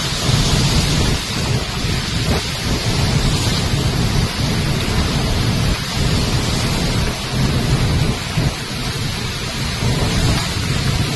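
Floodwater released through the dam's spillway gates, rushing and crashing over boulders, loud and unbroken, with a deep, steady rumble.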